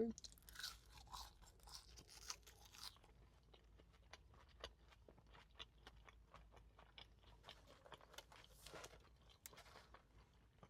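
Faint close-up chewing and crunching of fast food, with small wet mouth clicks throughout. There is a louder crunchy stretch over the first few seconds and a shorter one near the end.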